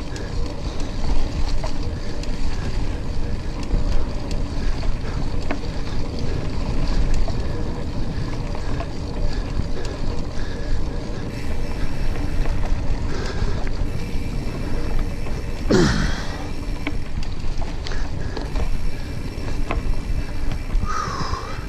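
Wind buffeting the microphone of a camera on a moving mountain bike, with the tyres rolling over a dirt trail: a steady, loud rumbling noise. A short rising squeak cuts through about three quarters of the way in.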